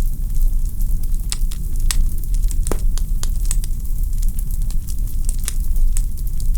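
Wood fire crackling in a fireplace: a steady low rumble of burning logs with frequent sharp pops and snaps, one louder pop a little under three seconds in.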